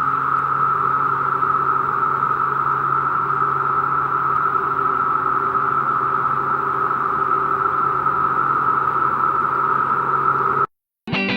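Chorus of periodical (17-year) cicadas: a loud, steady, high droning buzz that holds unchanged, then cuts off suddenly near the end.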